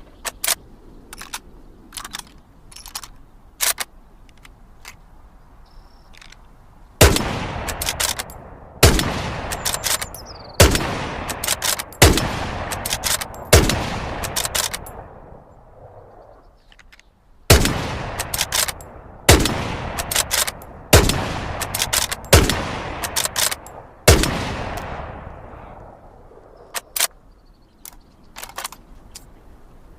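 Lee-Enfield bolt-action rifle firing two strings of five shots, each shot ringing out and followed by the click of the bolt before the next, about one shot every one and a half to two seconds. Metallic bolt and loading clicks before the first string and near the end.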